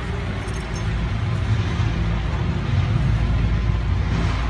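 Steady low mechanical hum with a rushing noise over it, like a running engine.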